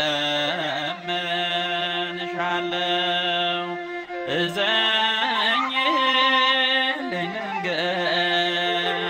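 Ethiopian Orthodox mezmur (devotional hymn): a voice sings long, wavering, ornamented notes over sustained accompanying tones.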